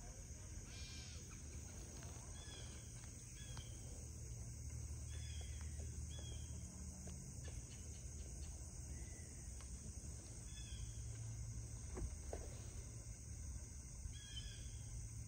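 Faint outdoor nature ambience: a steady high drone of insects, with several short bird calls scattered through and a low rumble underneath. One sharp click stands out about twelve seconds in.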